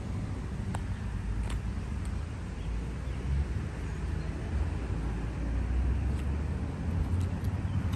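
Low, steady outdoor rumble of road traffic, growing a little louder in the second half, with a few faint ticks about one and one and a half seconds in.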